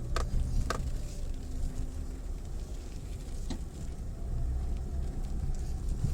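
Mitsubishi Pajero Mini driving slowly on a rough unpaved forest track: a steady low engine and road rumble with gravel crackle, broken by three sharp knocks from stones and bumps, two in the first second and one about halfway.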